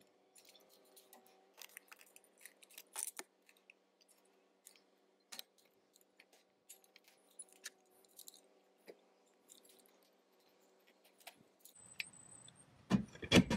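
Caulk gun in use: faint scattered clicks and ticks from the trigger and plunger rod as exterior sealant is squeezed out, over a faint steady hum, with a couple of louder knocks near the end as the gun is handled.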